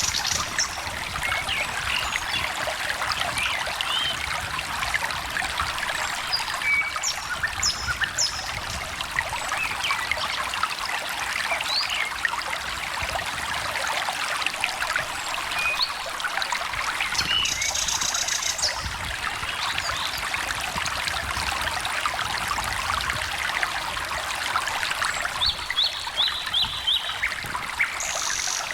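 A small stream trickling and babbling steadily. Birds call now and then in brief high chirps, with a quick run of about five notes near the end.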